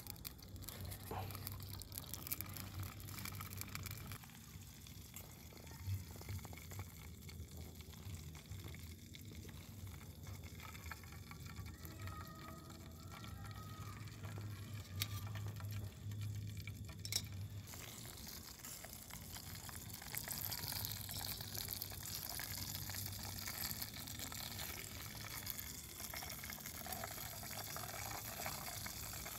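Hot oil sizzling and bubbling as food deep-fries in a small metal pot over a camp stove, with a few sharp clinks of tongs against the pot and plate. The sizzle gets stronger about two-thirds of the way through.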